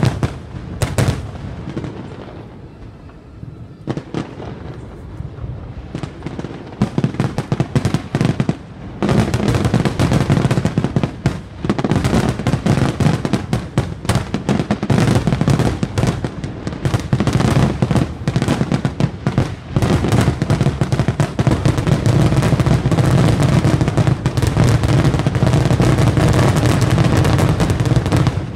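Aerial fireworks shells bursting: separate bangs for the first several seconds, then from about nine seconds in a dense, continuous barrage of booms and crackle.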